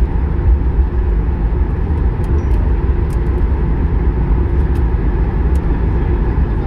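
Boeing 737 MAX 8 cabin noise while taxiing: a steady low rumble of the CFM LEAP-1B engines at idle and the airframe rolling on the taxiway, heard from inside the cabin.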